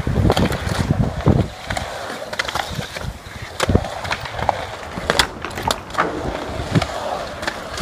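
Skateboard wheels rolling on concrete, loudest in the first second and a half, with several sharp clacks of the board through the rest.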